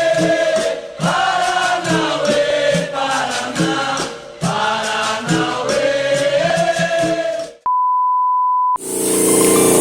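Background music with choral singing and a beat. Near the end the music cuts off and a steady electronic beep sounds for about a second, then a louder, noisier sound starts.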